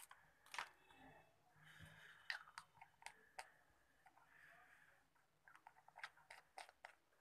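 Faint clicks and taps of a small plastic paint bottle's cap being handled and screwed back onto the bottle, with a quick run of ticks near the end.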